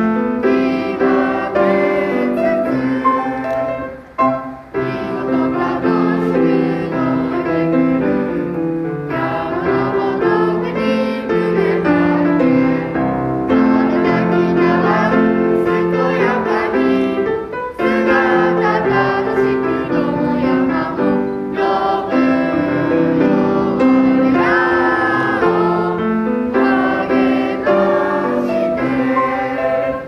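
A group of schoolchildren and adults singing a song together, with piano accompaniment.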